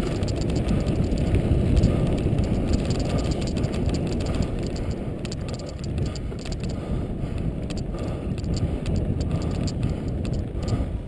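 Rumbling noise of riding a bike fast over a dirt trail: wind buffeting the camera microphone and tyres rolling on the ground, with many small rattles and knocks as the bike goes over bumps.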